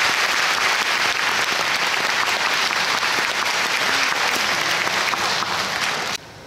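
Concert-hall audience applauding, a dense steady clapping that stops abruptly near the end.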